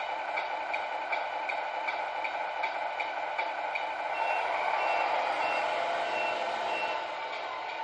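Tamiya MFC-01 sound unit in a 1/14 RC MAN TGX truck playing its truck engine sound through a small speaker, with a fast regular tick, about three a second. From about four seconds in, a row of short high beeps, about two a second, comes in as the engine sound swells a little, then stops near the end.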